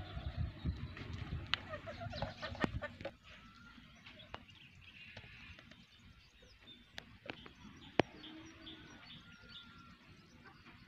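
Outdoor rural ambience with birds calling and chirping, a low rumble over the first three seconds, and a few sharp clicks, the loudest about eight seconds in.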